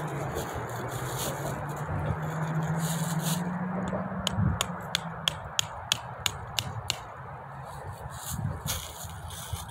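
Traffic noise from a highway overpass: a steady road rush with a vehicle engine drone that slowly rises in pitch and cuts out about four and a half seconds in. Right after, a quick run of about ten sharp light clicks, roughly four a second.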